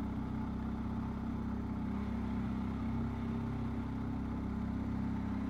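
BMW R1250 GS Adventure's boxer-twin engine running steadily at low speed, a steady low hum heard from on the bike.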